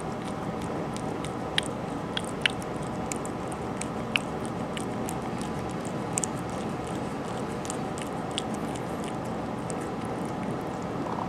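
Tortoiseshell cat licking yogurt off a metal spoon, close up: many small wet clicks of tongue and mouth, a few sharper ones in the first four seconds, over a steady background hiss.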